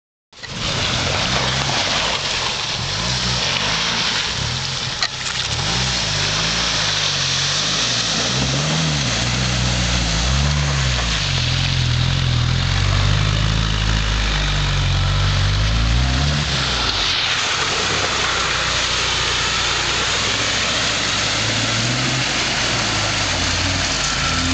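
Jeep Wrangler engines revving up and down several times as the Jeeps churn through mud, water and sand, then running more steadily for the last third, over a steady hiss.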